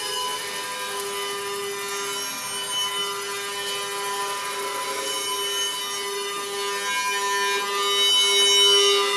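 Experimental electroacoustic sound performance: a sustained drone of layered steady tones with a rough, rasping texture, growing louder near the end.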